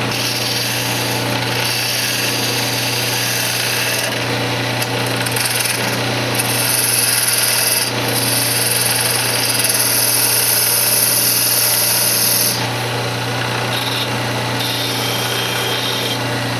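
Wood lathe running with a steady motor hum while a turning tool cuts the spinning cocobolo blank, truing it up; the cutting hiss grows louder for several seconds in the middle, then eases.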